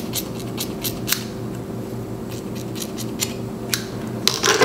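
Hair-cutting scissors snipping through lengths of a long curly wig: a run of short, quick snips, thickest in the first second, then a few more spread out.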